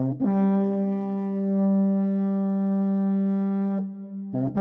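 A brass instrument holds one long, steady low note for about three and a half seconds. A shorter note starts near the end, opening a musical introduction.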